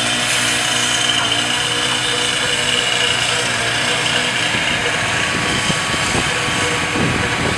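Concrete mixer truck's diesel engine running steadily while its drum turns and discharges concrete down the chute.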